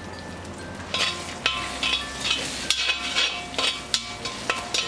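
Two eggs frying in hot oil in a wok, sizzling steadily. About a second in, a spatula starts breaking them up to scramble them, scraping and clicking against the pan in short irregular strokes.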